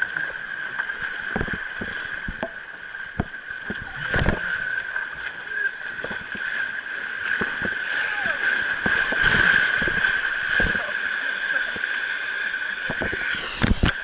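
Steady rush of flowing water on a tube water slide, with repeated splashes and knocks as the inflatable ring bumps along the channel, and a burst of loud splashes near the end.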